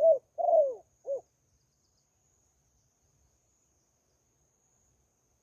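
A dove cooing: the tail of a phrase of low, hollow coos, with a longer falling note and a short final note, ending about a second in.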